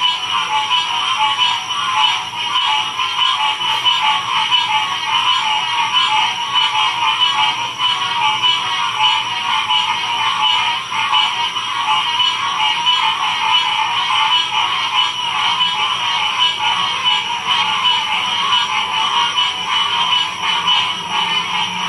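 Dense chorus of many frogs calling at once, a steady, unbroken wall of rapid trilling and pulsing calls at two pitches, one mid and one higher.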